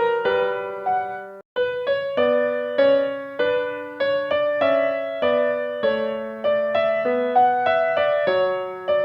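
Background piano music: a gentle melody of single struck notes, each decaying, with a brief gap about a second and a half in.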